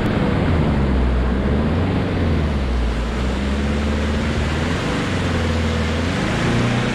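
Off-road 4x4's engine revving up and down as the vehicle pushes through deep, waterlogged mud ruts, with a steady rumble and wind noise across the rooftop microphone.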